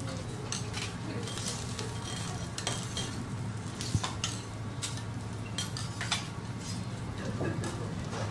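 Steel teppanyaki spatula and fork scraping and clinking on a flat steel griddle about every second, over a steady sizzle of Matsusaka beef steak and vegetable slices searing, with a low steady hum underneath.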